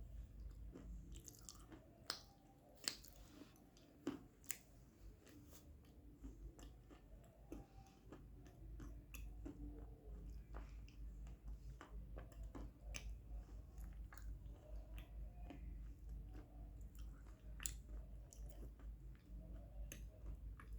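Crisp crunching and crackling of white cubes being crushed, with a few sharper cracks about two to four seconds in and again near the end.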